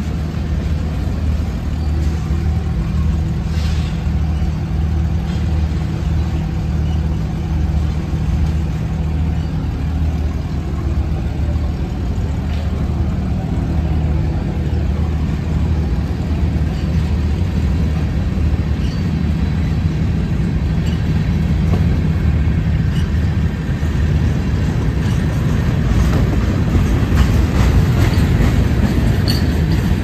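Freight cars of a passing manifest train, tank cars and covered hoppers, rolling through a grade crossing: a steady rumble of steel wheels on the rails, growing a little louder near the end.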